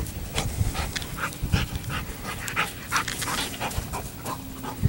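A dog panting close by, quick rapid breaths at about three a second.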